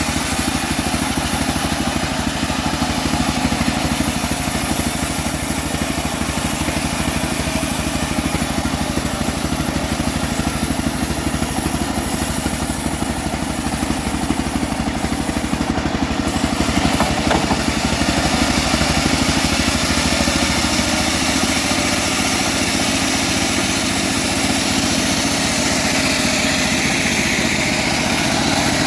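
Engine driving a homemade bandsaw sawmill, running steadily at an even speed. The pitch of its lowest hum shifts a little about two-thirds of the way through.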